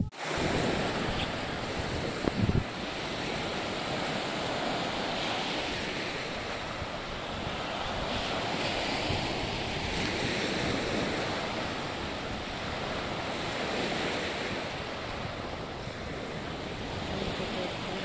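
Small sea waves washing onto a sandy beach, a steady surf hiss, with wind buffeting the microphone and a brief low thump about two and a half seconds in.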